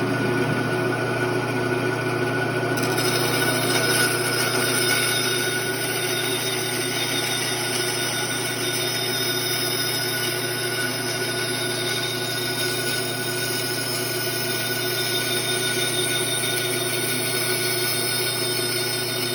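Bandsaw running and cutting a curve in wood: a steady hum under a hissing cutting noise that brightens about three seconds in.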